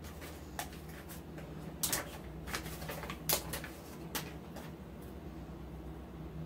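Scattered light clicks and taps, about five in a few seconds, of stick-on glass arrow decals and their paper backing sheet being handled and pressed onto a mirror, over a steady low hum.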